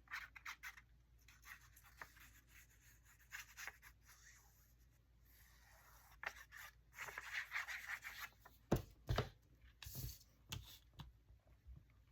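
Paper and cardstock pieces being handled and rubbed against each other on a craft table, in short rustling spells, with a longer rustle about two-thirds of the way in. Several soft knocks follow near the end, as things are set down on the table.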